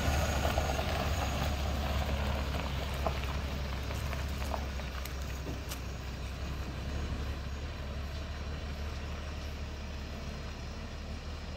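Convoy vehicles driving past on a dirt road and pulling away: a steady low engine hum over road noise, slowly fading.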